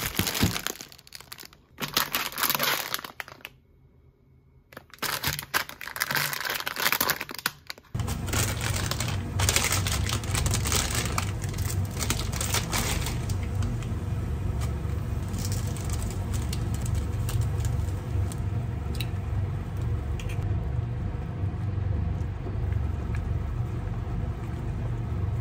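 Plastic instant-ramen packets crinkling as they are handled, in several bursts over the first eight seconds. Then a steady low rumbling hiss from water boiling in a small pot as the noodles cook.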